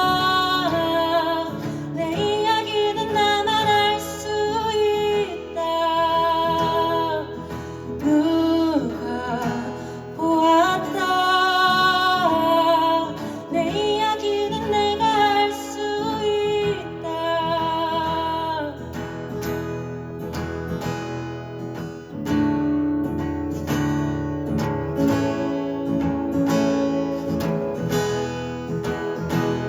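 Live acoustic band music: a sung melody with vibrato over acoustic guitar, giving way after about two-thirds of the way through to mostly rhythmic guitar strumming.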